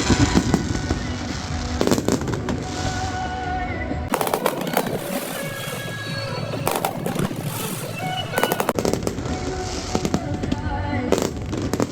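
Fireworks going off in several bursts of bangs and crackling, over music playing throughout.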